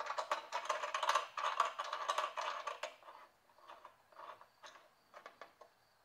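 Small metal hardware rattling and clinking as a nut is worked by hand onto the heater's steel mounting bracket. The clatter is dense for about three seconds, then thins to a few light clicks.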